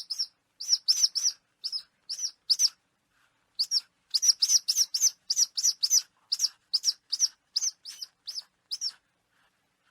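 A bird of prey's rapid, repeated high-pitched calls, about three a second, in two bouts with a short break around three seconds in. The calls stop about a second before the end.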